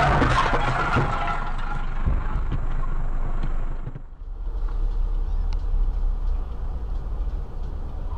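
Dashcam audio of the tail of a road crash: tyre squeal and clattering impacts die away over the first two seconds. After a short drop about four seconds in, a steady low engine and road rumble of a car moving in traffic, heard from inside the cabin.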